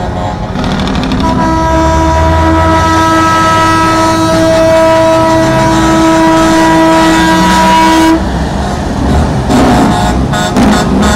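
Semi-truck air horn sounded in one long blast of several notes, held about seven seconds and cut off sharply, over the low rumble of diesel truck engines. After the horn stops, the engines of the passing tractor units are heard rumbling and pulsing.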